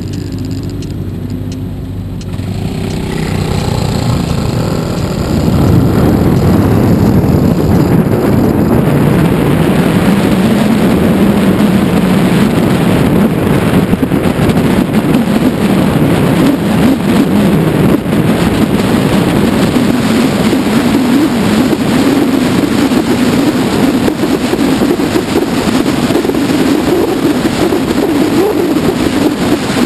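Kymco People S 250 scooter's single-cylinder engine idling, then revving up as the scooter pulls away about two seconds in. From about five seconds on, a steady loud rush of wind and road noise over the engine's drone at cruising speed.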